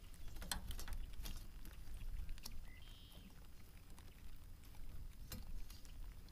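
Scattered light clicks and taps from handling a freshly caught bluegill and fishing line in a small boat, over a steady low rumble.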